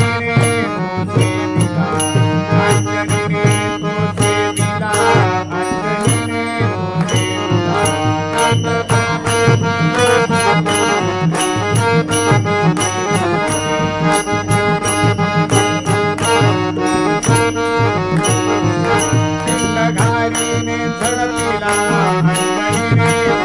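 Instrumental bhajan interlude: a harmonium holds and moves through a reedy melody while a pakhawaj drum and small hand cymbals keep a steady beat.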